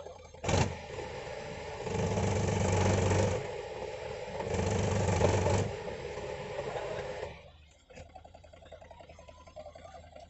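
Powertrac tractor's diesel engine revved up by the driver trying to pull the bogged tractor out of the mud: a sharp rise about half a second in, two louder surges of about a second each, then it drops back to idle near the end.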